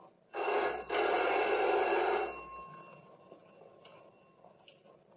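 Electric doorbell ringing: a short ring, a brief break, then a longer ring of just over a second that dies away.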